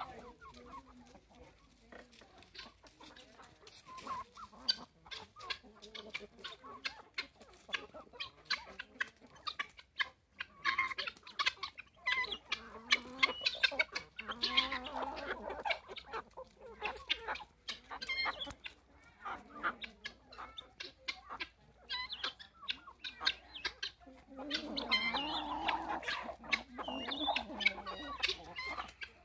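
Free-range chickens clucking, a flock of hens calling on and off, with louder bouts of clucking about halfway through and again near the end. A scatter of faint clicks runs under the calls.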